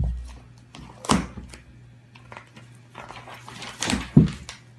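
A cat pawing at a magazine that someone is reading: a few dull thumps and paper knocks, one about a second in and a couple more near the end.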